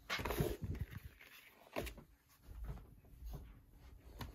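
Soft handling noises from unboxing: a few light knocks and rustles as the packaging and device are moved about, with one knock near the start, one a little under two seconds in and one near the end.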